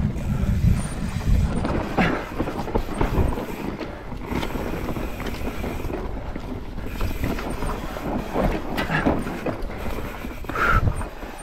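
Mountain bike descending fast on a soft dirt trail: tyres rolling over the dirt and the bike rattling, with wind rumbling on the microphone.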